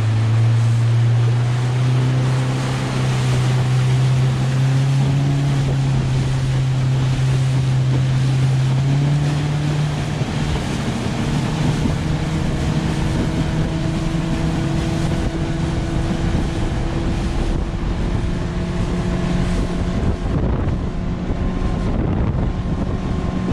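Four-stroke outboard motor running at speed, pushing a skiff on plane. Its engine note climbs slowly, with a step up about nine seconds in, over the hiss of water spray and wind buffeting the microphone.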